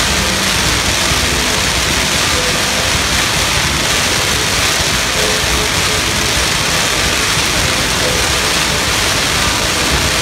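Fireworks on a ceremonial cart going off without pause: a dense, steady crackle and hiss.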